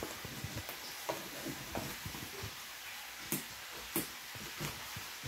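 Scattered light clicks and knocks of handling as a drone battery is rummaged for and picked up, over a steady faint hiss.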